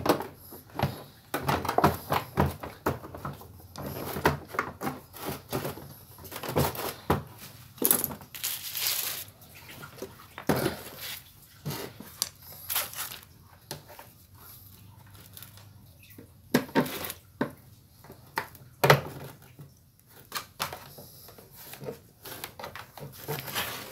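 Irregular knocks, clicks and short scrapes of a small two-stroke sprayer engine being set onto a backpack sprayer's plastic frame and its mounting bolts turned in by hand. The engine is not running.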